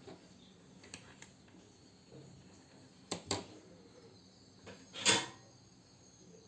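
Faint clicks and taps of hands and tools at work while wires are soldered onto a small circuit board, with one louder brief scrape or knock about five seconds in.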